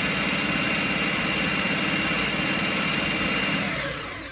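Food processor motor running on low speed, blending a thick mixture of melted mozzarella and cottage cheese, with a steady high whine over the churning. It is switched off near the end and winds down.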